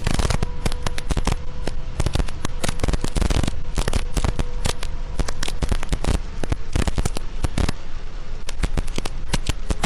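Heavy rain striking a vehicle's windshield and roof: a dense, irregular run of sharp taps of drops hitting, over a faint steady hum.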